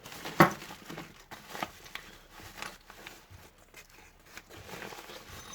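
Plastic parts bags crinkling and rustling as they are handled, with scattered small clicks and one sharp knock about half a second in.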